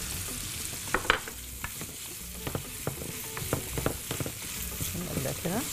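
Minced sausage and chopped green bell pepper frying in oil in a nonstick pan, sizzling steadily, while a wooden spatula stirs them with frequent short scrapes and taps against the pan.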